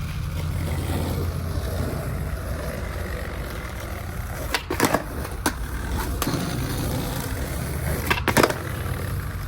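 Skateboard wheels rolling over pavement with a steady rumble, broken by sharp wooden clacks of the board popping and landing. There is a cluster of clacks about halfway through, single ones a little after, and a loud pair near the end.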